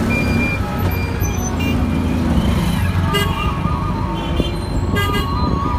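Road vehicle engine running steadily, with several short horn toots and some voices over it.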